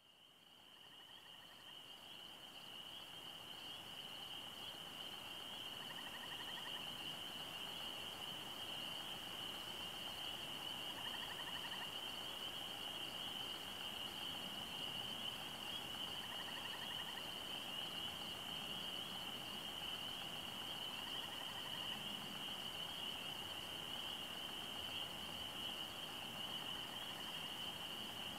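Faint, steady high-pitched chorus of calling animals, fading in over the first few seconds, with a short trill repeating about every five seconds.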